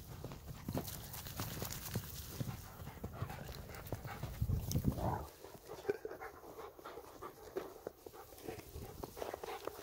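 A shepherd dog panting in quick, repeated breaths.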